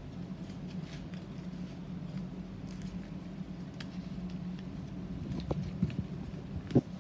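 Origami paper being folded and creased by hand: soft, scattered crinkles and ticks over a steady low hum, with a few sharper knocks near the end, the loudest just before it ends.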